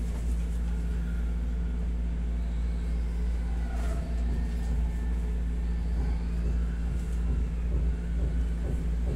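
Steady low mechanical hum that holds level without any change.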